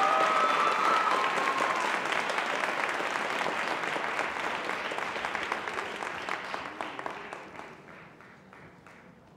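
Audience applauding with a few voices calling out in the first couple of seconds. The clapping thins to scattered claps and dies away over the last few seconds.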